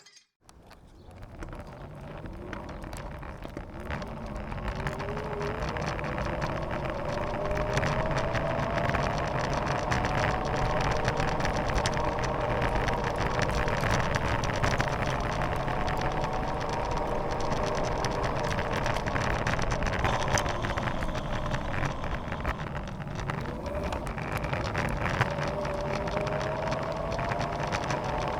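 Electric scooter ridden in mode 2: the motor's whine rises as it gathers speed over the first several seconds, then holds with small rises and falls over a steady rumble of tyres on the road. About 22 seconds in the whine drops as it slows, then climbs again.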